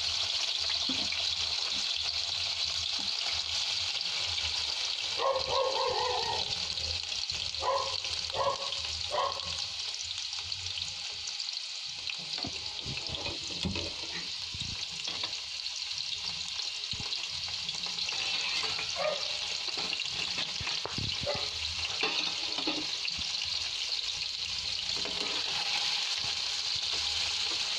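Paneer cubes sizzling steadily as they shallow-fry in hot oil in an aluminium kadai, with a metal spatula knocking and scraping against the pan now and then in the later part.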